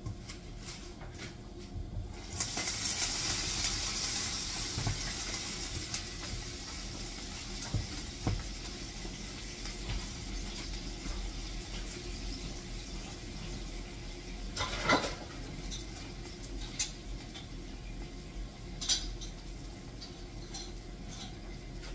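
Kitchen cookware and utensils clinking and clattering. A hiss starts suddenly about two seconds in and slowly dies down, and a few sharp clinks come in the second half.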